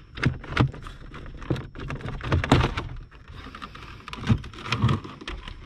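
Plastic dashboard trim of a BMW 335i being pried off by hand: a run of irregular clicks and knocks as the retaining clips pop loose and the panel knocks against the dash, the loudest about midway.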